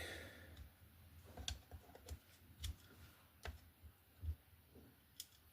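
Light, scattered clicks and knocks of small metal carburetor parts and hand tools being handled while a Stromberg carburetor is taken apart, about half a dozen over a few seconds.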